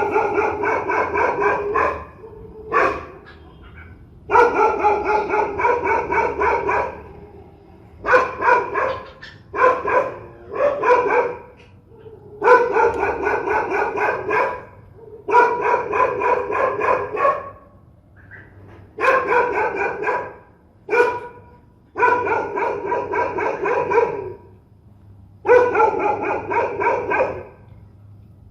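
Dog barking fiercely in repeated runs of one to two seconds, with short pauses between them.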